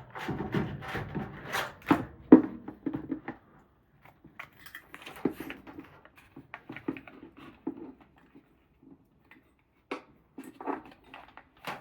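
Irregular clicks, taps and light rattles of plastic parts and wire-harness connectors being handled and fitted on a washing machine's control board, densest in the first few seconds.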